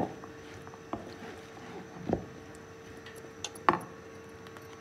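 Metal spoons clinking and tapping against a mixing bowl and a small glass bowl of flour while potato strips are stirred and flour is scooped: a handful of light taps, the loudest about two seconds and three and a half seconds in, over a faint steady hum.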